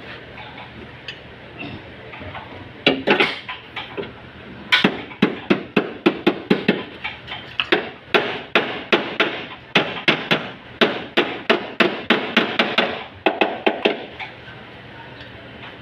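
Hand hammer striking the sheet-steel radiator core support of a car. A few blows come about three seconds in, then a quick run of strikes, about three a second, until near the end. The blows are beating the collision-bent panel back into shape.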